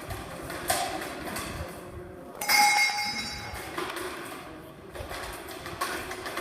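A single metallic clang about two and a half seconds in, ringing briefly with several high tones before dying away, over steady background noise.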